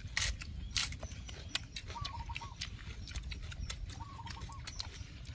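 Eating sounds: chopsticks clicking against small rice bowls, with scattered clicks throughout. Twice, about two seconds in and again about four seconds in, a short run of four or five quick chirps. A steady low rumble runs underneath.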